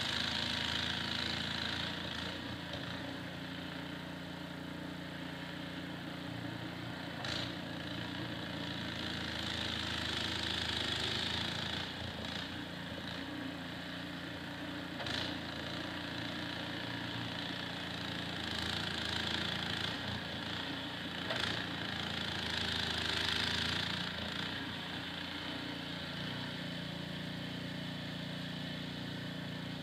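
Small gasoline engine of a snowblower running steadily, with a hiss that swells and fades and a few sharp ticks.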